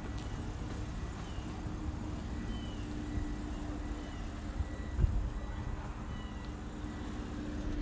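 Steady low mechanical rumble with a thin constant hum over it. A few faint, short high chirps come now and then.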